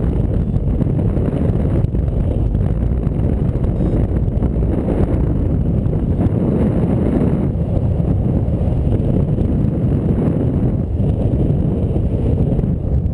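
Wind rushing over the microphone of a camera on a paraglider in flight: a loud, steady rumble of wind noise.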